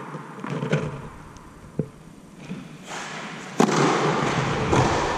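Tennis serve on a clay court: a few light knocks as the ball is bounced before the serve, then one sharp crack of the racket striking the ball about three and a half seconds in. A steady rushing noise rises from about three seconds in and runs under the strike.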